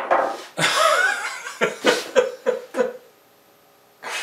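A man's drawn-out groan breaking into a run of short, rueful laughs, then a breathy exhale near the end: dismayed laughter at his own woodworking mistake.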